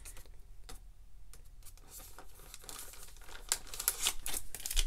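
Foil wrapper of a Panini Prizm basketball card pack crinkling as it is pulled from the hobby box and handled. There are faint light rustles and clicks at first, growing into louder crinkling over the last second or so.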